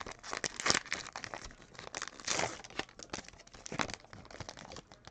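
Trading card packs and cards being handled by hand: a run of irregular crinkling and crackling of wrapper and card stock, loudest about a second in and again around two and a half seconds in.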